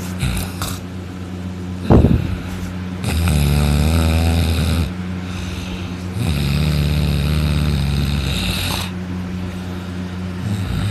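A man snoring loudly in deep sleep, lying on his back with his mouth open. There are two long, fluttering snores of about two seconds each, the first about three seconds in and the second about six seconds in, with a brief sharp sound about two seconds in. A steady low hum runs beneath.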